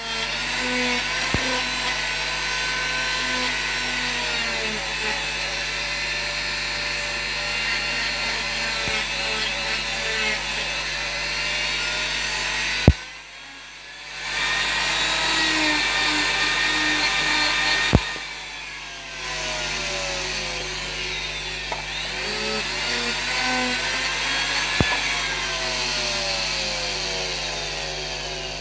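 Handheld power carving tool grinding wood off a carved dog's head, its motor whine sagging and recovering in pitch as it bites. It stops briefly about halfway and starts again.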